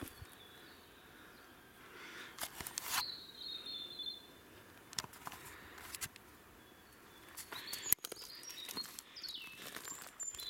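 Footsteps rustling and snapping through dry leaf litter and twigs on a forest floor, coming in short runs, while small birds give a few high chirping calls.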